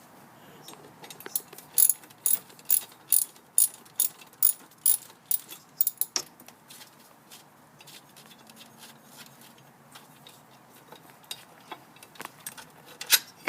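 Socket ratchet wrench being worked to remove a fastener, clicking about twice a second for several seconds. Fainter scattered clicks follow, with one sharp click near the end.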